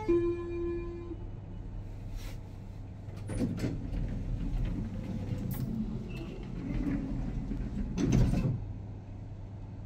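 Schindler lift's arrival chime ending on the lower note of a falling two-note chime, then the lift's sliding doors running with rattles and rumble, ending in a louder knock about eight seconds in.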